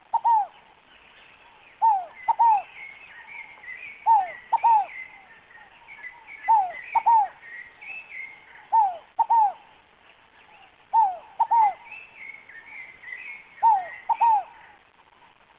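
A scaled dove (rolinha fogo-apagou) calling over and over, each phrase three short falling coos, one then two quick ones, repeated about every two seconds. Smaller birds chirp at a higher pitch behind it.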